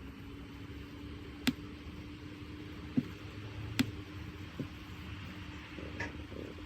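Steady low room hum with a faint steady tone, broken by four sharp taps or clicks, the first about a second and a half in, such as a pen or objects set down on a desk while studying.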